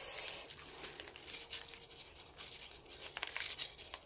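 Coarse, gritty potting mix being scooped and added around a potted succulent's roots: a short crackle at the start, then faint scattered ticks and rustles of grit.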